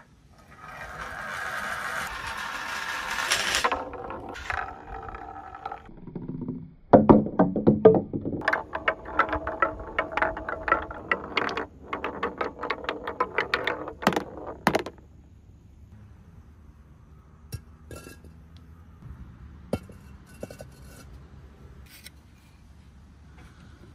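Two balls rolling fast down long metal rail channels, a steady rolling rumble with a ring that swells for about three seconds and then eases off. From about seven seconds they rattle through a field of small wooden blocks: a quick, dense run of knocks and clacks for some eight seconds, then only a few faint clicks.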